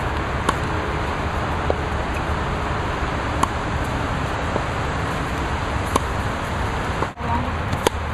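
Tennis ball being struck by a racket and bouncing: about five sharp, short pops spaced a second or two apart, over a steady loud hiss.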